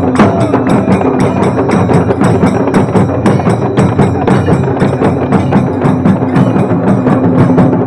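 A dhol-tasha ensemble drumming: large barrel dhols beaten in a driving rhythm under sharp, crisp strokes of tasha drums, in a loud, fast, even beat.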